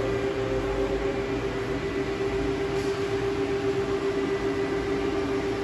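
Steady mechanical hum of factory machinery, a constant drone with one held tone over a low rumble.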